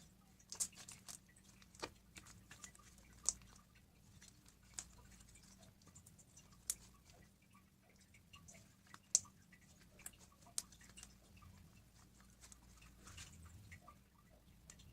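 Slime being handled, giving off scattered sharp clicks and small wet pops at an irregular pace, a few much louder than the rest, over a faint steady hum.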